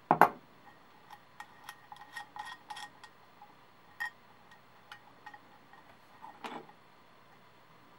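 A sharp clunk, then a scatter of small, irregular clicks and taps and a duller knock near the end: hand handling of a clock dial and the brass hex nut on the quartz movement's shaft, after pliers have worked on the nut.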